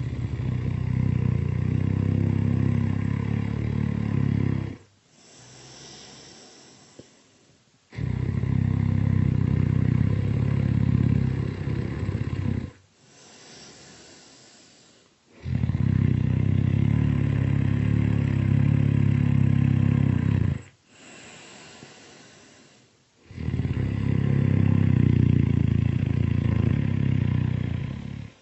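Loud, long snoring: four drawn-out rumbling snores of about four to five seconds each, with a softer breathy breath between each one.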